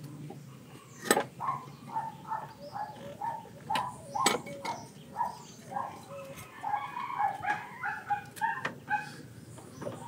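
A few sharp metal clicks as the aluminium lower intake manifold is handled and seated on the engine, the loudest about a second in and again near the middle, over a steady run of short animal calls, about two a second.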